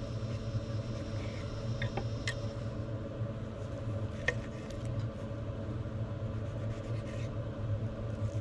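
Steady low machine hum, with a few light knife taps on a cutting board as tomatoes are cut, about two seconds in and again near the middle.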